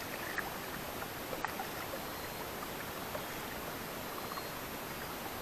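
Steady wash of water and wind around a small paddled boat on a river, with a few faint knocks.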